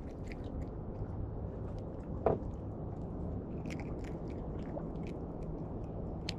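Small irregular clicks and taps of a hooked bluefish and fishing rig being handled to work out a deeply set hook, over a steady low rumble. One short, louder pitched sound comes about two seconds in.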